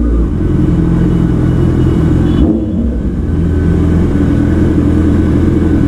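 Honda CBR650R inline-four motorcycle engine with an SC Project exhaust, running steadily at low revs.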